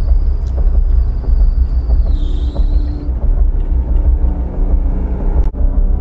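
Car engine and road rumble heard from inside the cabin, loud and low. A thin high whine runs over it through the first half and dips in pitch near the middle.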